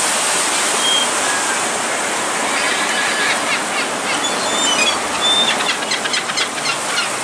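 Steady rush of sea water along the shore, with scattered short, high bird chirps and whistles over it. The calls come more often in the second half.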